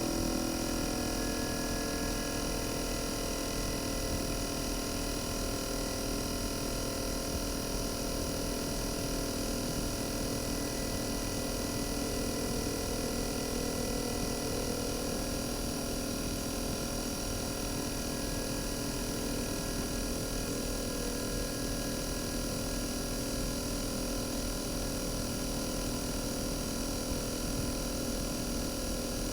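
RECHI 43W26SH single-rotary inverter compressor from a Sharp AU-J25XY air-conditioner outdoor unit, running steadily. It gives a set of steady tones whose lower ones settle in the first couple of seconds.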